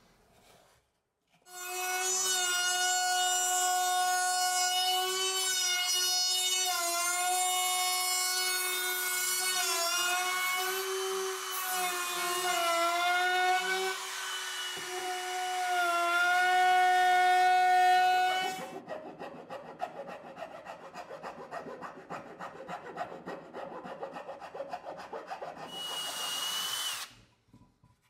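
A cordless trim router runs at high speed, a steady high whine that wavers and dips as the bit cuts into the wooden handle. After about 17 seconds it stops, and a rhythmic scraping on wood follows, with a brief higher whine near the end.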